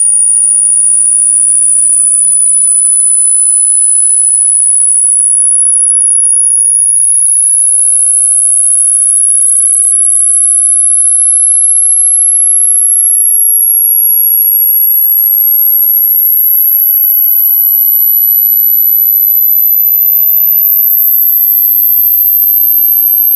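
A single loud, very high-pitched pure electronic sine tone, sliding slowly and steadily upward in pitch: the piercing tone sweep sold as the 'world's most painful sound'.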